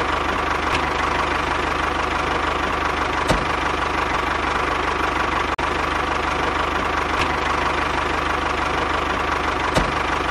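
Tractor engine sound running steadily at idle, with a very short break about five and a half seconds in.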